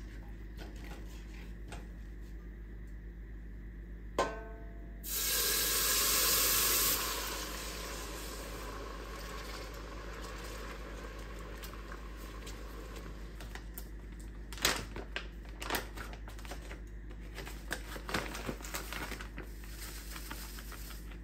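Water poured into a hot roux in a stainless steel stockpot: a clink of the glass measuring cup against the pot, then a loud sizzling hiss that fades over about three seconds. Later a silicone spatula stirs and taps against the pot a few times.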